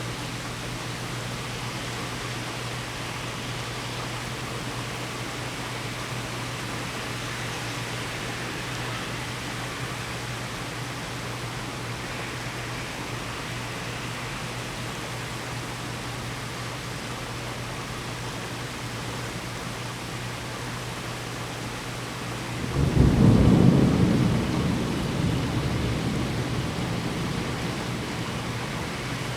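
Rain falling steadily during a severe thunderstorm. About 23 seconds in, a loud clap of thunder breaks in, then rumbles and fades away over the next several seconds.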